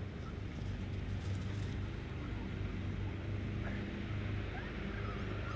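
A steady low mechanical hum, with a few faint Pembroke Welsh Corgi puppy whimpers near the end.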